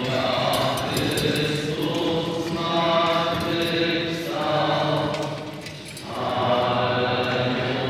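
A group of voices chanting or singing slowly in unison, in long held phrases with short pauses between them, inside a church.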